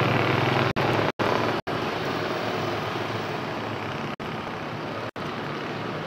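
Steady running noise of a vehicle engine, a low hum under a wide hiss, with several brief dropouts where the sound cuts out completely.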